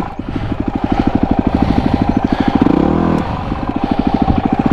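Yamaha WR250R's single-cylinder four-stroke engine running at low revs under throttle, with evenly spaced firing pulses. It dips briefly just after the start and again about three seconds in as the throttle eases while working through a rough off-road section.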